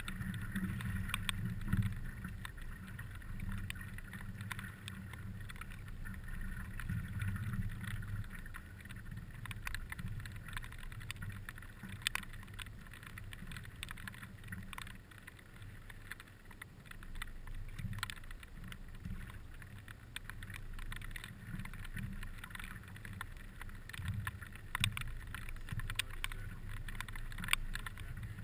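Water lapping and sloshing against the nose of a stand-up paddleboard as it is paddled through choppy water, with a low rumble of wind on the microphone and scattered small ticks.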